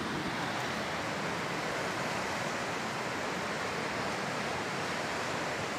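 Steady rushing of a fast-flowing river running over stones.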